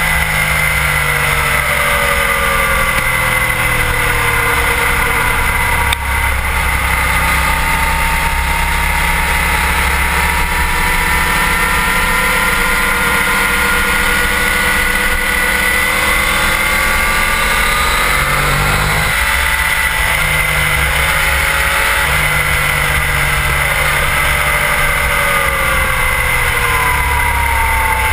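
Sport bike engine running at speed on track, heard from a camera mounted low on its fairing over heavy wind rush. The engine note sinks and swells with the throttle, climbs steeply about two-thirds of the way through, then drops sharply.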